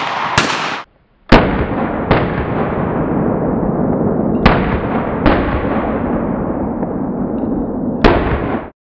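Short-barrelled AR-15-style rifle with a five-prong flash suppressor fired shot by shot: six sharp reports at uneven intervals, with a loud rushing noise carrying on between them. There is a brief drop-out about a second in, and the sound cuts off abruptly near the end.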